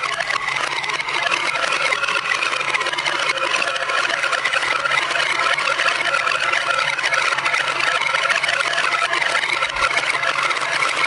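Many marbles rolling and clattering together down a marble run track: a loud, continuous dense rattle of tiny clicks with no let-up.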